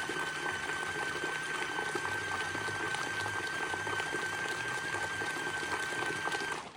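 Compact mini washing machine running with its lid open: water swishing around in the tub as it agitates, over a steady high motor whine. It stops abruptly near the end.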